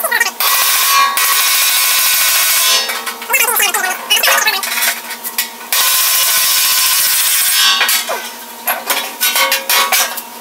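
Metalworking on the steel grill body: a tool works the edge in harsh, continuous bursts a second or two long, twice, then gives a run of quick sharp strikes near the end.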